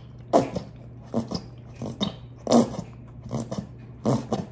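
A near-empty plastic Heinz ketchup squeeze bottle squeezed upside down, sputtering and squelching air in short bursts about once a second. Under it, a washing machine runs with a steady low hum.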